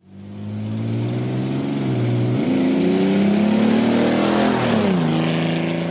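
Datsun 280ZX's L28 straight-six engine driving past under throttle, fading in at the start. The engine note climbs, drops sharply a couple of seconds in, then climbs and falls again near the end.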